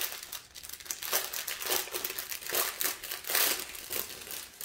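Small plastic bags of diamond painting drills crinkling irregularly as they are picked up and handled.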